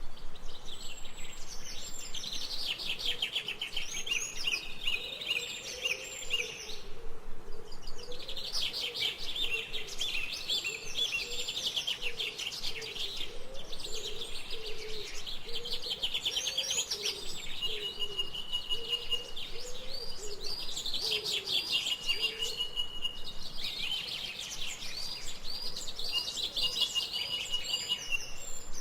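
A chorus of songbirds chirping and trilling over one another. A high, held whistle repeats several times in the second half, over a fainter, lower wavering call.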